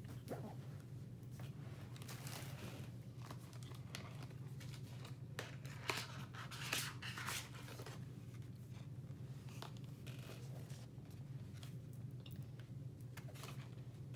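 Faint rustling, scraping and crinkling of packaging being handled as a small cardboard box is opened, with a few sharper crackles about six to seven seconds in. A low steady hum runs underneath.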